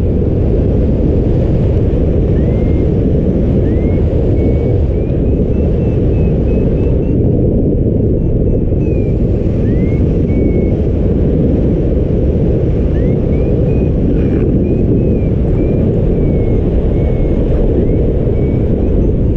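Strong wind buffeting the microphone in a steady low rumble, with faint short high chirps now and then.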